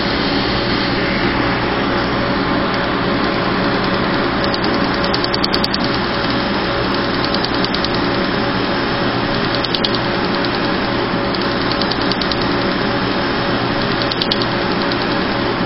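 Steady hum and rushing air from a tattoo-removal laser unit and its cold-air skin chiller. A few short runs of rapid faint clicks come through it as the laser handpiece fires pulses into the tattoo.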